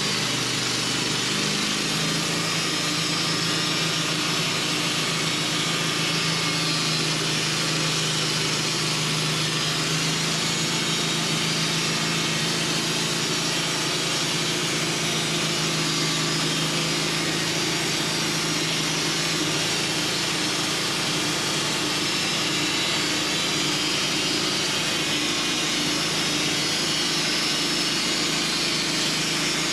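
Portable bandsaw sawmill's engine running, rising in speed about a second in and then holding steady, with a loud even hiss over it.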